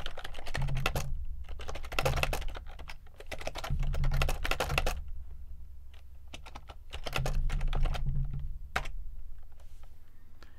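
Typing on a computer keyboard: rapid keystrokes in several quick bursts with short pauses between them.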